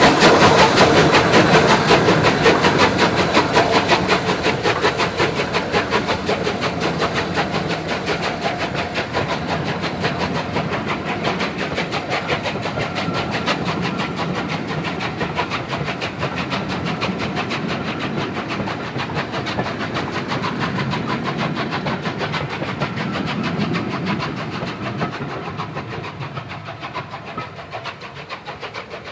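Three-cylinder Bulleid Rebuilt Battle of Britain Pacific steam locomotive 34059 hauling its coaches past and away: a fast, even beat of exhaust and rolling wheels that is loudest as the engine passes and fades steadily as the train draws away.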